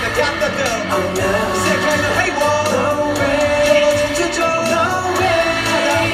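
Live pop music: a male voice singing into a microphone over a backing track with a steady beat, heard through the venue's sound system and recorded on a phone.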